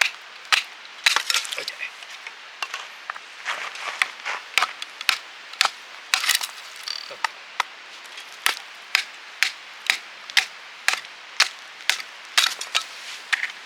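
A steady series of sharp knocks, about two a second, with some crunching in between.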